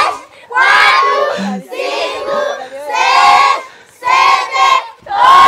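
A crowd of children shouting a count together in unison, one loud call about every second.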